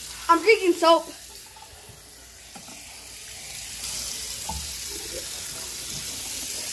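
Tap water running, growing louder about four seconds in, after a few short vocal sounds at the start.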